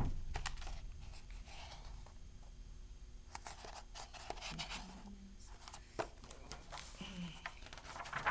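Rustling and light taps of a picture book's pages being handled, in short scattered bursts.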